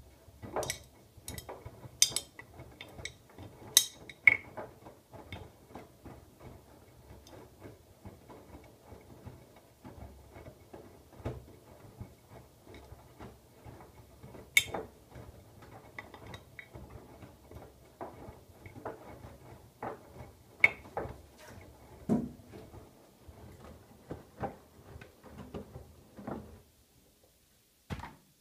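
Siemens iQ700 front-loading washing machine's drum turning during a wash: a low steady hum with irregular clicks and knocks from the tumbling load. It stops a couple of seconds before the end, and one more click follows.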